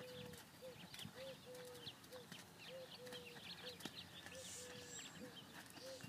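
Faint sounds of a ridden horse working in a sand arena: a short low tone repeating about twice a second, now and then held a little longer, with small birds chirping.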